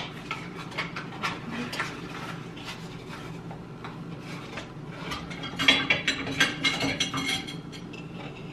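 Metal measuring spoons clicking and scraping against a baking soda box and a metal bowl as a teaspoon of baking soda is scooped and tipped into flour, with a run of quick clinks about two-thirds of the way through.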